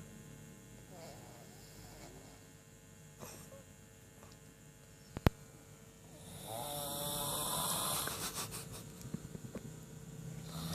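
A person snoring, with loud rasping snores from about six seconds in. Before that comes a quieter stretch with a steady hum and a single sharp click a little past five seconds.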